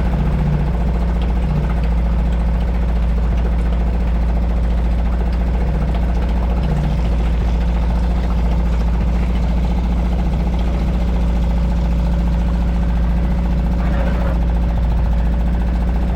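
Suzuki DF 2.5 HP four-stroke outboard engine running steadily in a test bucket of cooling water, with its oil sitting right at the lower mark of the sight glass, close to the level where the low-oil sensor kills the engine.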